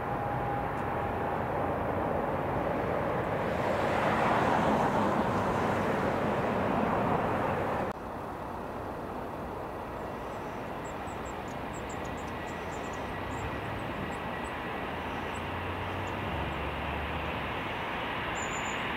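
Turboprop airliner, an Aer Lingus Regional ATR 72, climbing away after take-off, its propeller and engine drone swelling over the first several seconds. Then an abrupt cut to the quieter, steady engine noise of an easyJet Airbus A320-family jet moving along the runway at low power, with a low rumble toward the end.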